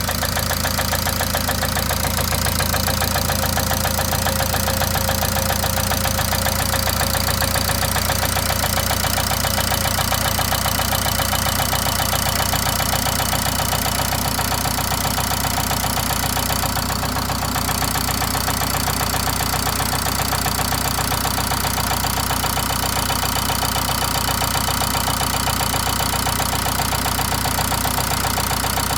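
Nissan X-Trail T31's M9R 2.0-litre four-cylinder diesel engine running steadily with a knock (стук) in it, the fault being shown.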